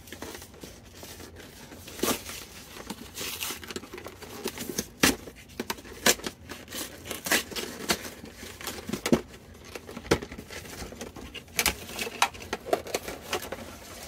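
A cardboard trading-card collection box being opened and its packaging handled: irregular crinkling, tearing and rustling, broken by sharp clicks and knocks.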